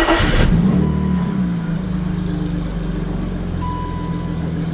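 BMW E32 730i's M30B30 3.0-litre straight-six, just started: the revs flare for the first half-second, dip slightly, then settle into a steady idle. The intake vacuum leaks behind its rough idle have just been sealed, and the idle is better.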